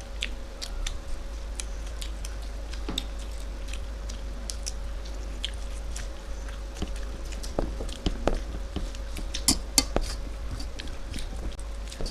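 People eating: chewing and biting with scattered small mouth clicks and smacks, busier and louder in the second half. A faint steady hum runs underneath.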